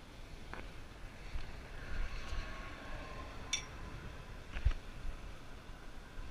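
Handling noise from fishing gear on a concrete pier: a few sharp clicks and a dull thump about four and a half seconds in, over a faint steady background.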